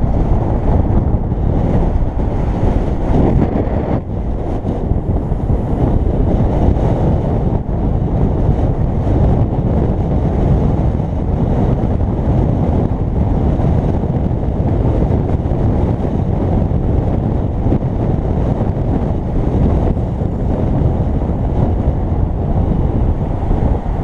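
Heavy wind buffeting a helmet-mounted camera's microphone as a bicycle descends a road at speed, a steady low rushing.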